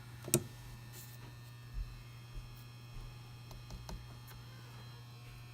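Steady low electrical hum, with one sharp click about a third of a second in and a few soft knocks later: parts of the opened hard-drive enclosure being handled.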